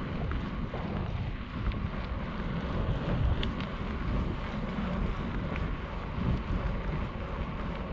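Wind buffeting the microphone of a camera on a moving bicycle, over the rumble of tyres rolling on an asphalt path, with a few faint ticks.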